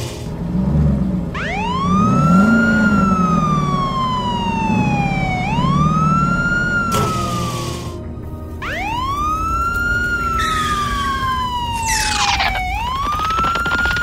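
Fire engine siren wailing: four wails, each rising quickly and then falling slowly, starting about every four seconds, over a low vehicle rumble. A short burst of noise cuts in about seven seconds in.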